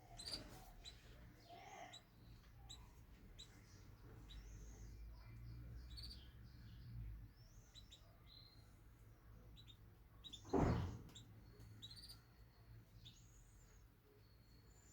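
Caged canaries chirping: scattered short, high calls and twitters. A single loud knock about ten seconds in.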